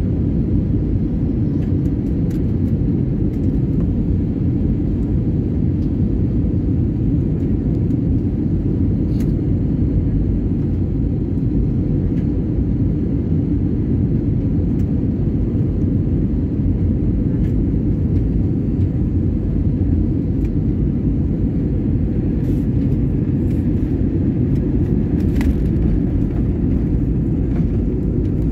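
Steady low rumble of jet airliner cabin noise, engines and airflow heard from inside the cabin on final approach to landing.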